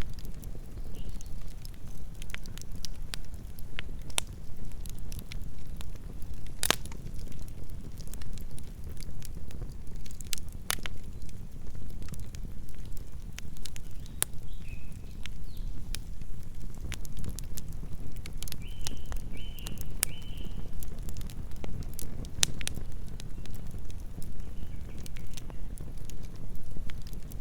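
Wood campfire burning: a steady low rumble of flames with frequent irregular crackles and sharp pops of burning wood.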